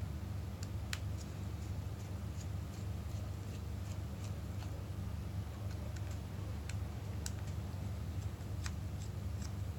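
Light, irregular clicks and ticks of a small fine-tipped Phillips screwdriver working the tiny caseback screws of a G-Shock watch, over a steady low hum.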